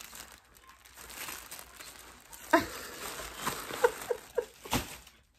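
Plastic packaging crinkling and rustling as it is handled and opened, with one sharp, loud crackle about two and a half seconds in and several shorter crackles after it.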